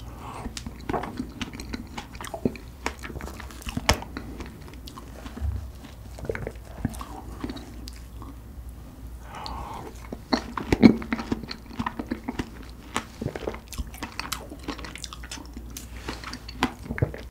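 Close-miked eating sounds of whipped cream and strawberries: wet chewing, lip smacks and many sharp mouth clicks, the loudest click about eleven seconds in.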